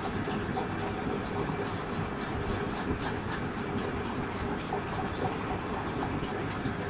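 Chicken curry cooking down in a pot on a stove: a steady low rumble, likely the burner, with faint sizzling crackles from the thick gravy.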